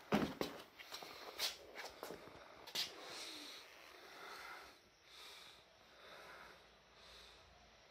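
A person's heavy, out-of-breath breathing close to the microphone, soft swells about once a second, after a few handling knocks and rustles in the first three seconds.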